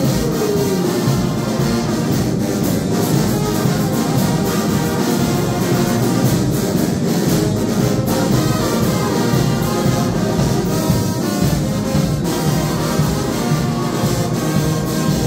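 Live brass band playing a tune, led by trombones and trumpets.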